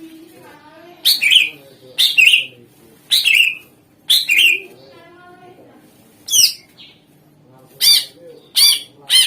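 Cucak ijo (green leafbird) singing loud, sharp, high call phrases about once a second, with a short break in the middle. This is a 'gacor' lure recording, meant to set other songbirds singing.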